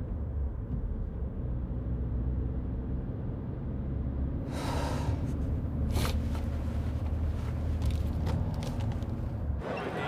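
Steady low rumble of a running vehicle, with a short rush of noise about halfway through and a sharp click about a second later; the rumble cuts off just before the end.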